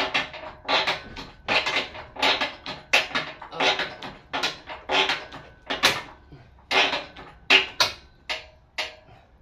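Manual engine hoist being worked to raise an engine out of the engine bay: a steady run of short, sharp strokes about every three quarters of a second, getting weaker near the end.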